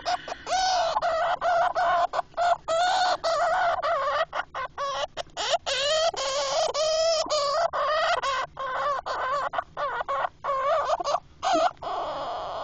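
Pet hamster giving rapid runs of short, squeaky, cluck-like calls that sound like laughing.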